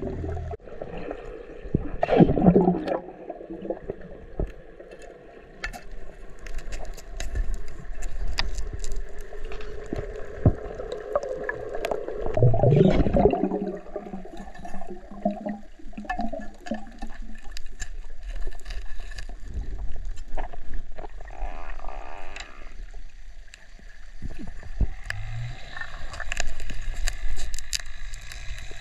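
Muffled water noise heard underwater, with gurgling and bubbling that swells loudly twice, about two seconds in and again around thirteen seconds, and scattered sharp clicks and knocks throughout.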